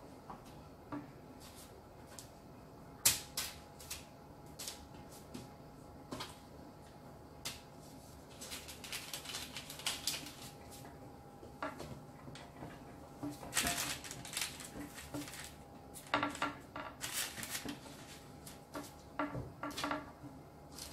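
Soft rustling of baking parchment and light taps as dough strands are lifted and laid over one another on a baking tray, in several short spells, with a sharp click about three seconds in.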